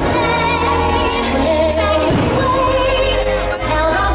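Loud show soundtrack song with female singing, with the crack of fireworks bursting now and then over the music.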